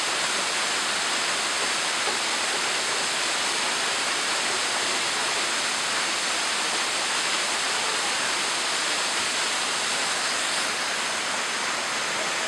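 Small waterfall pouring onto rocks: a steady, even rush of falling and splashing water.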